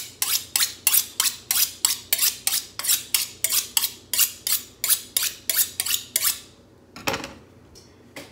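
Kitchen knife being honed on a honing steel: quick alternating metal-on-metal strokes, about three a second, stopping about six seconds in. About a second later, a knock as the knife is set down on the cutting board.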